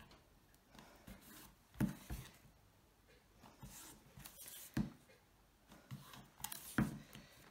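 Hands handling a cardboard box and pressing double-sided adhesive tape along its side: soft rubs, scrapes and light taps, a few at a time with short gaps between.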